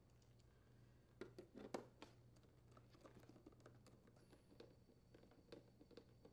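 Faint clicks and light taps of a hand screwdriver setting and turning screws into a plastic ice maker cover, with a short cluster of louder clicks about a second and a half in.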